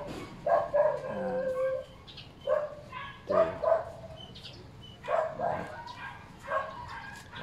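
A dog barking in short repeated barks, about eight over several seconds at uneven spacing, some drawn out into a brief held whine.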